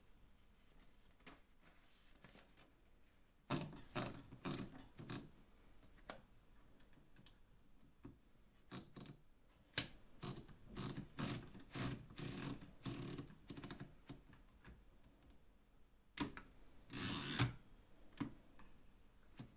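Erika 5 manual typewriter being typed on: sharp key strikes in irregular runs with pauses between. Near the end comes a louder, longer rasping sound.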